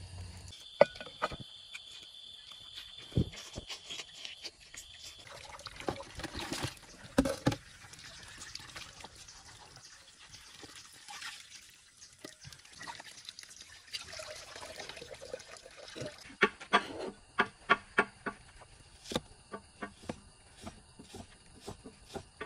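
Wood fire crackling with a few sharp pops, then water trickling from a bamboo pipe into a basin. Near the end comes a run of quick, even cleaver chops on a wooden chopping block as shallots are sliced.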